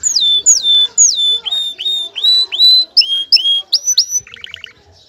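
Male domestic canary singing its breeding song: a loud run of clear whistled notes, about three a second, the first few sliding down in pitch and the later ones sliding up. It ends with a short, fast trill near the end.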